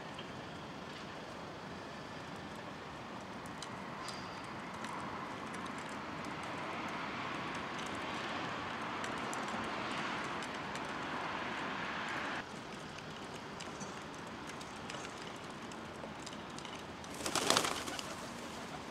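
Feral pigeons cooing at the feeding dishes over a steady background hiss that swells for several seconds and then drops off suddenly. Near the end comes a short, loud flurry of wingbeats as the birds take off.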